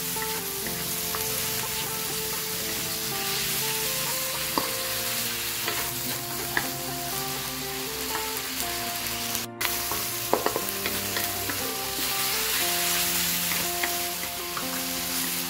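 Beef pieces and pounded garlic, shallot and chilli paste sizzling in hot oil in a wok, stirred and turned with a wooden spatula that scrapes and knocks against the pan now and then. Soft background music with held notes plays underneath.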